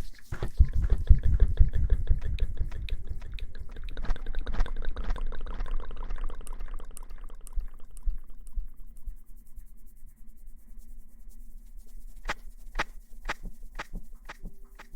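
Close-miked hair washing: dense wet crackling and squishing of lather being worked through hair, fading out after about eight seconds, followed by a few sharp clicks near the end.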